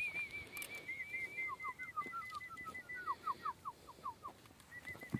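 Birds calling: a fast run of short, evenly spaced chirps, joined by a second, lower series of downward-slurred notes that fades out after about four seconds. A thump near the end.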